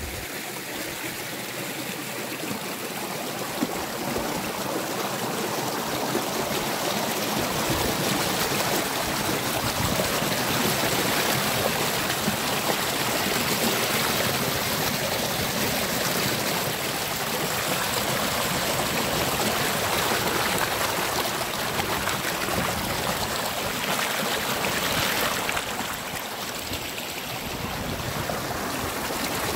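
Small stream rushing and splashing over a little cascade of rocks, heard close up as a steady rushing.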